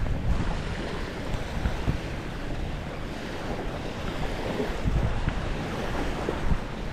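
Wind buffeting the microphone, with a steady rush of sea surf behind it.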